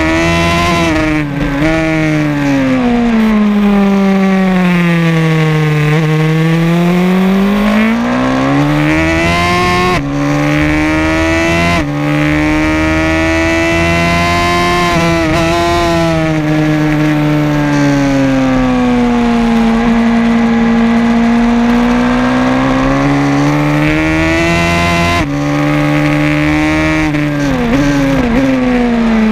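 Racing motorcycle engine heard from on board at race pace, its pitch sinking and climbing in long sweeps as the throttle is rolled off and opened through the corners, with a few abrupt breaks at gear changes. Wind noise rides along with it.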